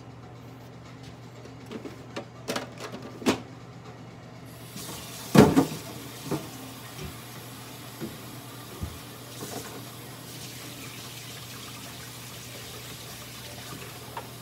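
A low steady hum with a few sharp clicks and knocks in the first few seconds, the loudest knock about five seconds in. A steady hiss like running water starts at that point and carries on.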